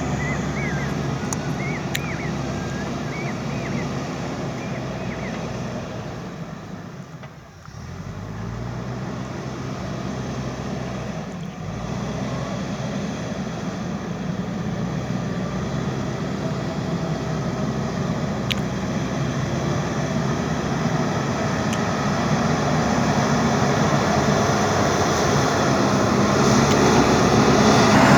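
Backhoe loader's diesel engine working under load. It drops off briefly about a quarter of the way in, then picks up and grows louder toward the end.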